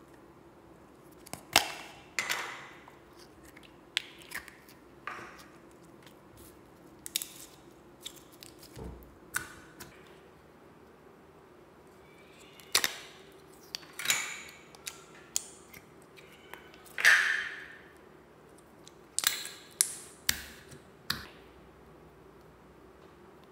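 Plastic slime containers handled: irregular sharp clicks, taps and snaps of hard plastic cases and lids, a few with a short scrape or rustle after them, over a faint steady hum.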